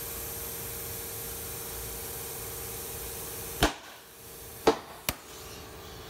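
Compressed air hissing into a scooter tire through an air chuck on the valve stem, over a steady hum. A little over three and a half seconds in, the hiss cuts off with a sharp click, and two more sharp clicks follow.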